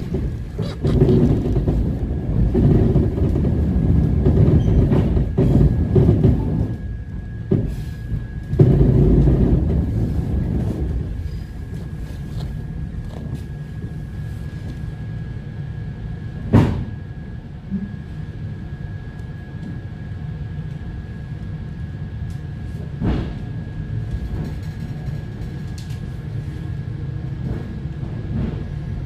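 Inside the passenger car of an ET2M electric multiple unit on the move: a steady low running rumble, heavier for about the first ten seconds and then settling lower, with a thin steady high tone throughout. Two sharp knocks come in the second half.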